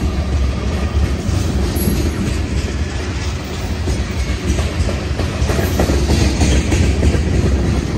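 Black tank cars of a Union Pacific oil train rolling past at close range: a steady rumble of steel wheels on the rails, with many small irregular knocks.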